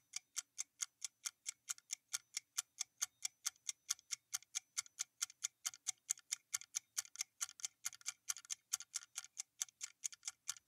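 Clock-ticking sound effect of a quiz answer timer, steady quick ticks about four a second, marking the time running out to answer.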